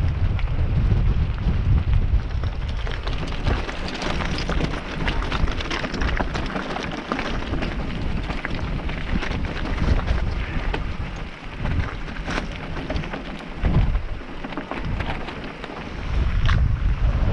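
Mountain bike rolling fast over loose gravel and stones, its tyres crunching and the bike clattering in quick irregular clicks. Wind rumbles on the microphone throughout, heaviest at the start and again near the end.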